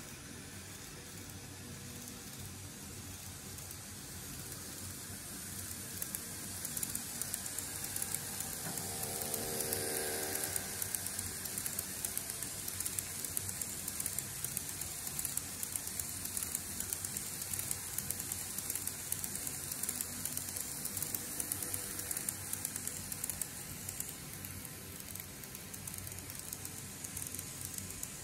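N-gauge model trains, including a TOMIX E231-series set, running past on the track: a steady hiss with many rapid small clicks of wheels over rail joints, growing louder about six seconds in. A brief motor whine rises and fades around ten seconds as a train passes close.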